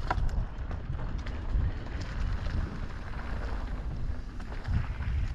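Wind buffeting the camera microphone over the rumble of an electric mountain bike riding along a dirt trail, with a few sharp clicks near the start and scattered small knocks and rattles.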